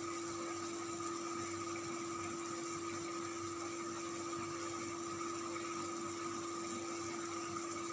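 Steady hum of a running motor, with one constant low tone and a fainter higher one over a light even hiss.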